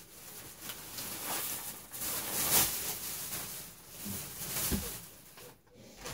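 Rustling and handling of bags and craft items being moved about, in irregular swells, with a couple of soft knocks.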